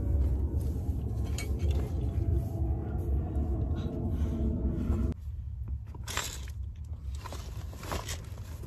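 A steady low vehicle rumble with a hum, which cuts off abruptly about five seconds in. After it come rustling and a few clicks as clothes and a backpack are handled.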